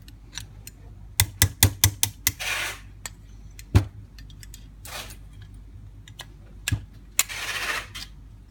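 Steel screwdriver clicking and scraping against the cast body of a Holley 94 carburetor while a stiff accelerator pump is worked loose: a quick run of sharp taps about a second in, a few single clicks, and longer scrapes, the longest near the end.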